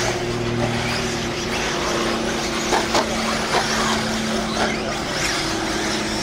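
1/8-scale electric RC buggies racing on a dirt track: their motors whine up and down in short glides as they accelerate and brake, over a continuous hiss, with a steady low hum underneath.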